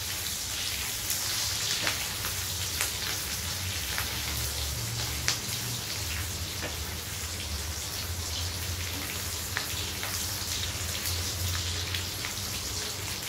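Cubed onion, green chilli and capsicum sizzling and crackling in hot oil in a kadai while being stirred with a spatula, with a steady low hum underneath.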